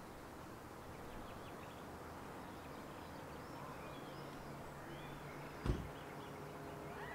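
Quiet outdoor ambience with faint, scattered bird chirps and a low steady hum, broken by a single sharp thump about six seconds in.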